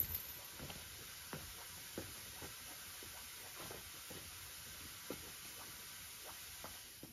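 Light rain: a faint, steady hiss with scattered soft taps of drips, about seven, at irregular intervals.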